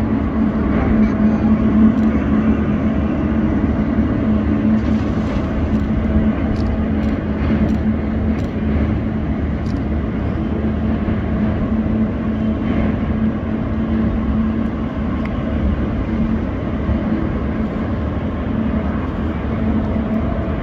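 Boeing 777 jet engines idling as the airliner taxis: a steady rushing noise with a constant low hum.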